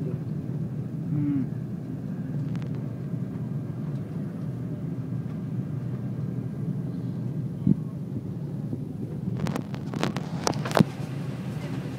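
Steady airliner cabin noise during the descent: the drone of the engines and the airflow, with a few sharp clicks and knocks in a cluster near the end.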